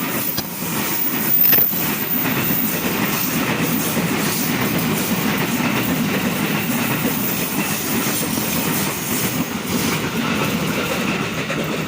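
A train passing close by on the rails: a steady rumble of wheels on track, with a few sharp clacks in the first two seconds.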